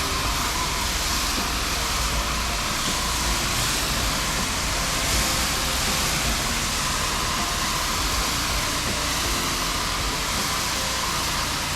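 Pressure washer spraying steadily, a continuous hiss of the water jet over a low engine hum, while downstreaming sodium hypochlorite (SH) through a downstream injector onto a pool screen cage.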